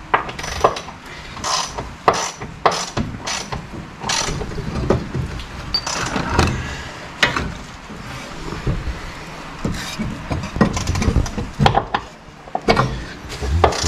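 Irregular metallic clicks and knocks of hand tools and front suspension parts being handled and worked into place while a lowering-spring strut is fitted.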